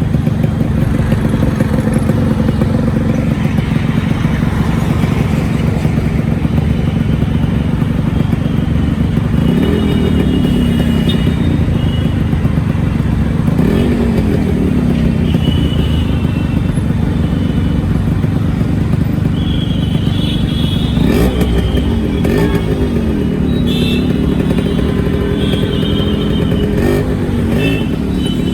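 Yamaha RX100 two-stroke single-cylinder motorcycle engine running steadily, with its revs rising and falling briefly several times.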